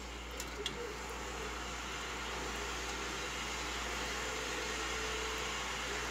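Steady hiss of sugar water in a steel pot being heated back toward the boil, slowly growing louder, with two light clicks of the stirring spoon against the pot under a second in.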